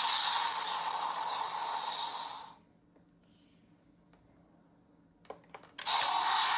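Electronic sound effect from a Kamen Rider toy transformation belt's speaker, a loud hissing, buzzing burst that cuts off suddenly about two and a half seconds in. After a short pause come a few sharp plastic clicks, then another loud electronic sound starts near the end.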